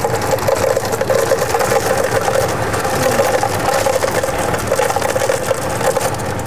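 Steady mechanical running noise with a constant hum.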